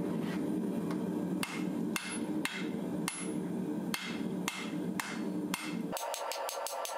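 Hammer blows on a glowing bloom steel billet on an anvil, evenly spaced about two a second, over a steady low roar. Near the end the blows give way to quicker, lighter clicks.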